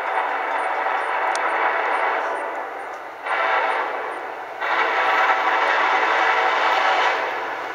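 Nathan K5LLA five-chime air horn on a Union Pacific SD70ACe locomotive sounding a series of blasts: one held for the first few seconds, a short one about 3 seconds in, then a long one from about 5 seconds in that tapers off near the end. The long-short-long pattern is the grade-crossing warning signal of an approaching train.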